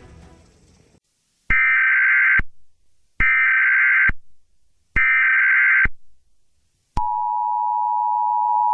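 Emergency Alert System broadcast tones: three short data bursts, each just under a second, then the steady two-tone attention signal starting about seven seconds in and cutting off abruptly.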